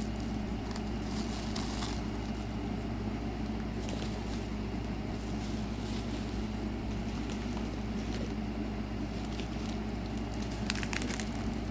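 Light crackling and rustling of packaging as a wrapped item is handled and unwrapped, with a few sharper clicks near the end, over a steady low hum.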